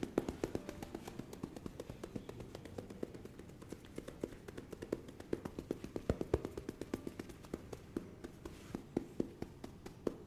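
Quick, irregular tapping by hands, several light taps a second, with a few stronger strikes along the way.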